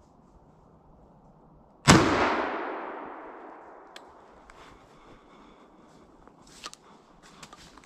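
A single shotgun shot, one sharp crack about two seconds in, its echo rolling away through the forest and fading over about two seconds. A few faint clicks and rustles follow.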